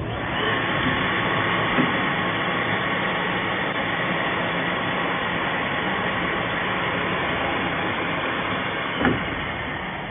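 Automatic balancing machine running with a carbon ceramic brake disc clamped on it: a steady whirring hiss with faint steady tones. A small click comes about two seconds in and a knock about nine seconds in, after which it starts to die down.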